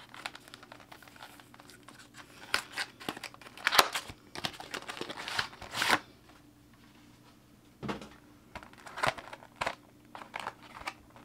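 Cardboard packaging of a screen protector being torn open, with quick bursts of crackling and rustling, followed by a few crinkles of its clear plastic tray being handled near the end.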